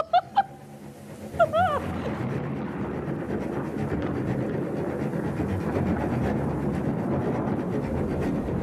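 Two short, high yelps in the first two seconds, then a steady, loud rumbling din with a fine crackle, typical of a haunted-house attraction's scare sound effects.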